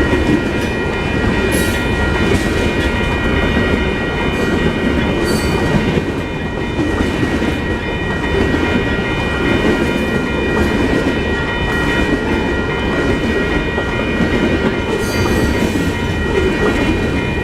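A long train's cars rolling past on the rails: a steady, loud rumble of wheels on track, with a faint thin high whine held over it.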